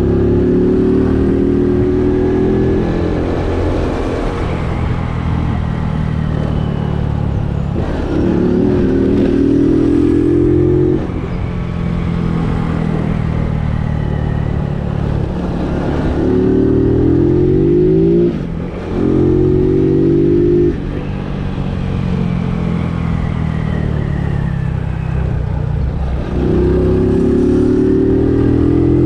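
A vehicle engine running under way, pulling hard five times in spurts of a few seconds, its pitch climbing in each and dropping suddenly, with steadier, quieter running in between.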